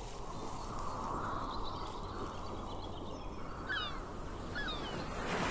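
Outdoor ambience: a steady background rumble with a few short bird chirps that slide downward in pitch, bunched about four seconds in.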